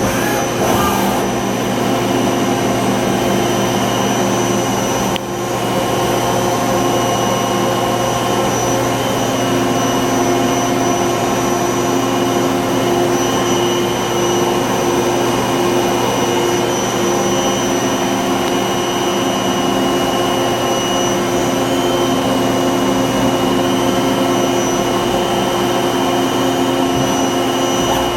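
Miyano JNC-45T CNC lathe running under power: a steady mechanical whine of several constant tones over a hum, with a brief drop in level about five seconds in.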